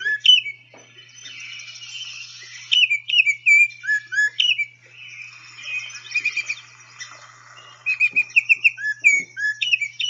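Male Baltimore oriole singing: phrases of clear whistled notes, repeated every few seconds, with fainter chattering between the phrases.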